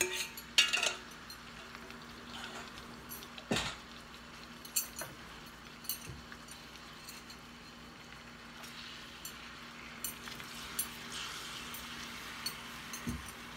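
Teriyaki sauce sizzling softly in a hot frying pan of chicken thighs, with scattered clinks of metal tongs against the pan as the pieces are turned. There is a sharp knock about three and a half seconds in, and the sizzle grows a little louder in the second half.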